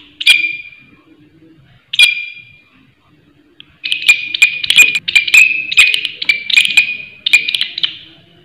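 Green leaf-like katydid (bush cricket) calling loudly with harsh, rasping chirps. Two single chirps come in the first two seconds, then a fast run of chirps, about two or three a second, for roughly four seconds.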